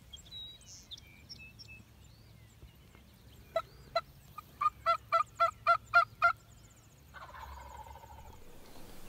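Wild turkey yelping: two single yelps, then a run of seven at about four a second. A fainter, longer call follows about a second later.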